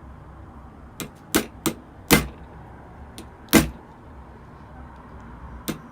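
Sharp irregular knocks and cracks, about seven in all, as a scalpel blade is forced into the glued seam of an Apple 87W USB-C power adapter's hard plastic case to split it open. The loudest crack comes about three and a half seconds in.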